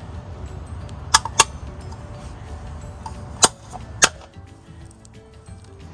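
Aftermarket BMW wheel center cap being pressed into an alloy wheel, snapping into place with four sharp clicks: two close together about a second in, and two more a little past the middle.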